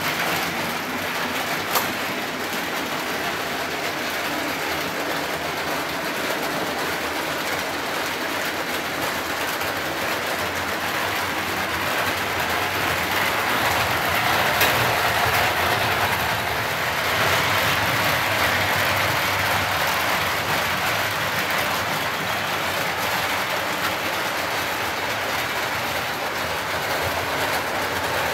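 Model trains running on a layout: a steady whir and rumble of wheels and motors on the track, growing a little louder for a few seconds midway, with a sharp click about two seconds in.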